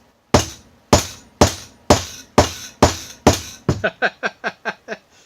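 Hammer blows, metal on metal, on the rusted, spring-loaded spring abutment of a 1965 Triumph TR6 fork stanchion as it is knocked to break it loose. About seven hard, ringing strikes come roughly two a second, then a quicker run of lighter, ringing taps near the end.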